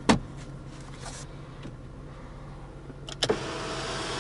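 A sharp click as the sun visor is moved, then about three seconds in a click of the overhead switch and the power sunroof's electric motor starts running with a steady whir.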